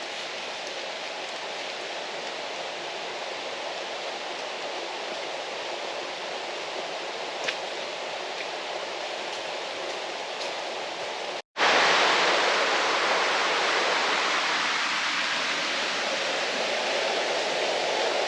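Steady rushing of running water, an even hiss without any clear rhythm. It cuts out for an instant about eleven seconds in and comes back louder.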